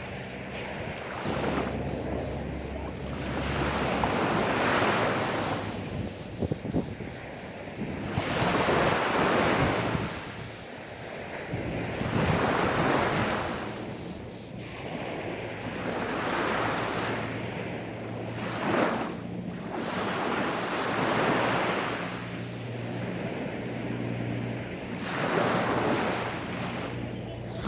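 Gentle sea waves washing onto a sandy beach, each wave swelling and falling back every few seconds.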